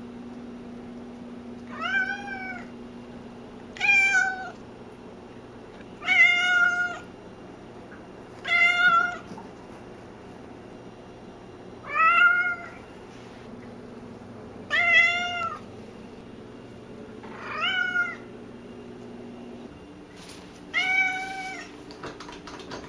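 Domestic cat meowing loudly and insistently: eight separate meows about two to three seconds apart, each rising then falling in pitch.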